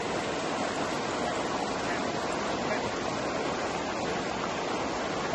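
Steady rushing water, an even roar of noise that does not change.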